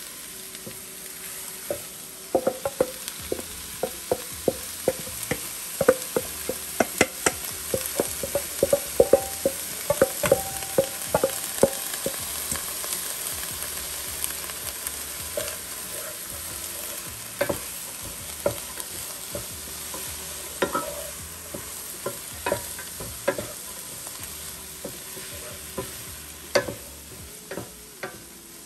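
Diced bell peppers, carrots and onion sautéing in butter in a nonstick frying pan: a steady sizzle, with a wooden spoon clacking and scraping against the pan as the vegetables are stirred. The knocks come thick and fast in the first half and more sparsely after.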